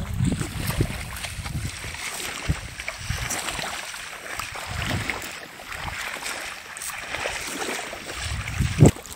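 Shallow floodwater sloshing and splashing as people wade through it, with wind gusting on the microphone. A sharper, louder splash or knock comes near the end.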